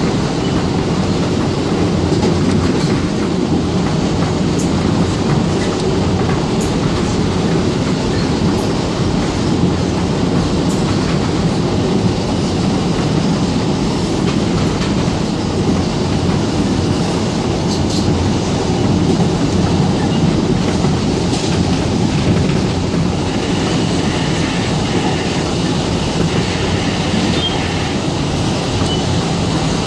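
Interior ride noise of an R160B Siemens subway car running at speed: a steady rumble of steel wheels on the rails with occasional light clicks. A faint high tone joins in for the last several seconds.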